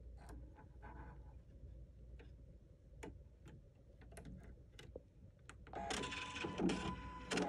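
Husqvarna Viking sewing machine being rethreaded by hand: scattered small clicks and taps of thread and machine parts, then about six seconds in a louder mechanical whir from the machine lasting about a second and a half.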